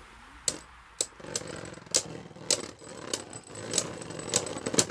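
Two Beyblade spinning tops battling in a clear plastic stadium: sharp clicks as they strike each other and the wall, about two a second at first, with rattling and scraping of the tops grinding together from about a second in.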